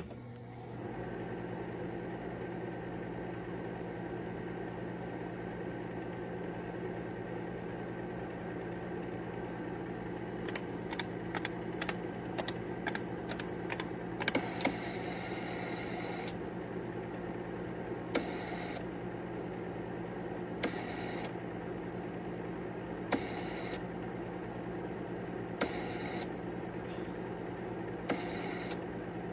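IBM 5100 computer switched on: its power supply and cooling fan start at once and run with a steady hum. About ten seconds in comes a quick run of clicking keystrokes on its keyboard, then short hissing bursts every two to three seconds.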